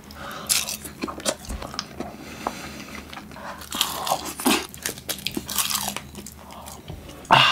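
Close-miked biting and chewing of crisp roasted seaweed (nori) wrapped around minced tuna: a string of sharp, irregular crunches, the loudest one near the end.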